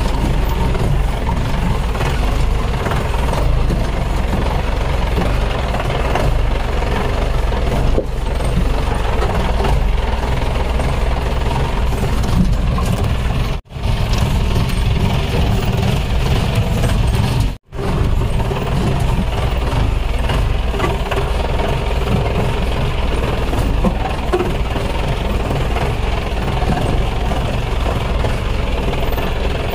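Off-road jeep's engine running as it drives a rough dirt trail, heard from inside the vehicle as a steady low drone. The sound cuts out briefly twice in the middle.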